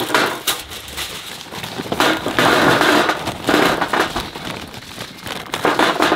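Aluminium foil crinkling as it is folded, then charcoal briquettes tumbling from a paper bag and clattering into the metal tray of a portable charcoal grill, in several pours with the bag paper rustling.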